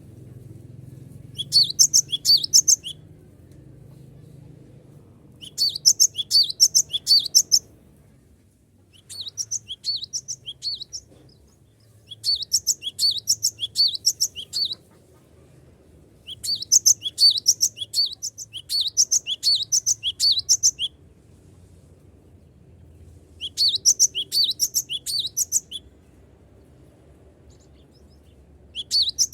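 Cinereous tit (gelatik batu) singing loud, in repeated bouts of quick, high-pitched notes. Each bout lasts two to four seconds, with short pauses between, about seven bouts in all.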